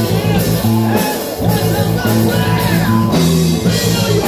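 Heavy metal band playing live: electric guitars and bass hold low chords over drums and cymbals, with a singer's voice on top.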